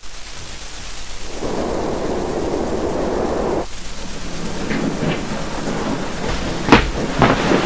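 Rain with a low rumble of thunder, swelling about a second and a half in and dipping abruptly a little past halfway before carrying on, with a few short sharp knocks near the end.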